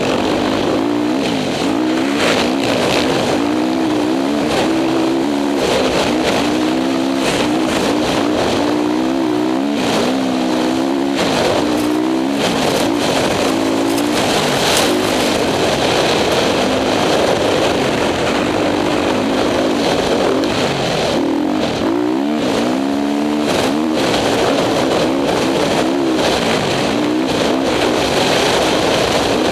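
Honda CRF450 single-cylinder four-stroke dirt bike engine revving up and down over and over as it is ridden through sand, over a steady rush of wind noise.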